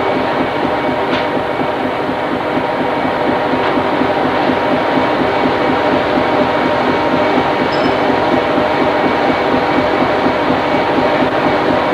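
Steady, loud drone of a fishing trawler's machinery heard on the working deck, with several steady humming tones running through it.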